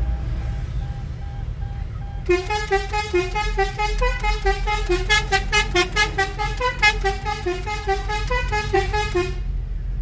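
Basuri 'telolet' multi-tone musical horn playing a fast tune of short notes. It starts a couple of seconds in and runs for about seven seconds, over the low rumble of the car on the road.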